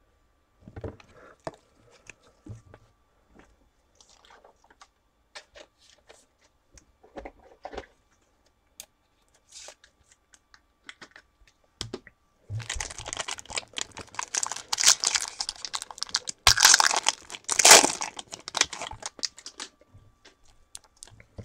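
A few faint taps and handling clicks, then, just past halfway, a trading-card pack wrapper being torn open and crinkled loudly for about seven seconds.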